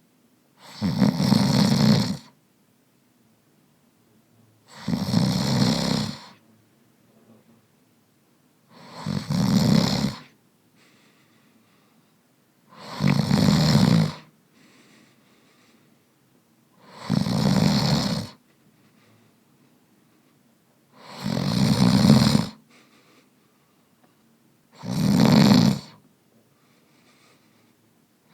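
A man snoring in slow, regular breaths: a loud snore about every four seconds, each lasting a second and a half, seven in all.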